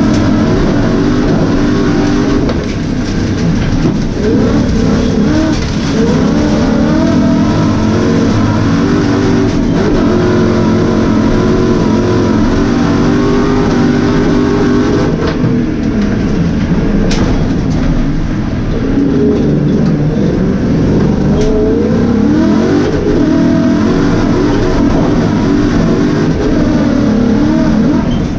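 A race car's engine heard from inside the cabin, revving hard and dropping back again and again as it shifts gears and lifts for corners during a lap.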